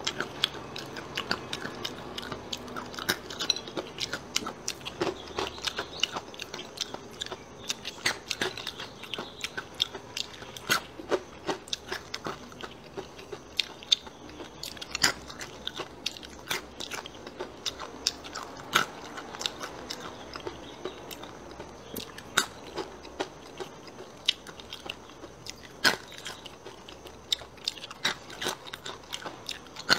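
Close-miked crunching and chewing of a crispy fried chili snack, dried chilies coated in starch and flour with sesame and deep-fried. Sharp crunches come irregularly, often several a second.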